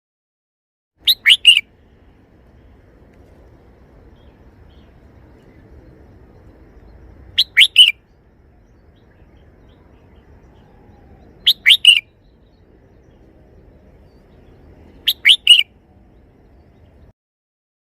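Red-whiskered bulbul singing a short three-note phrase four times, a few seconds apart, over faint low background noise.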